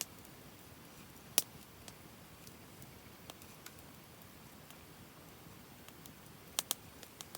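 Wood fire crackling: scattered sharp pops and snaps over a faint steady hiss, the loudest about a second and a half in and a quick pair near the end.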